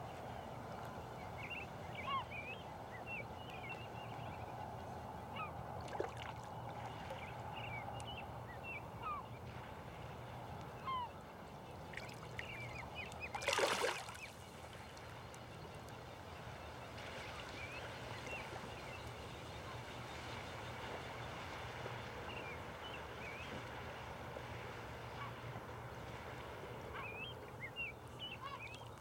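Birds calling: scattered short chirps throughout, with one much louder call about halfway through, over a steady low background hum.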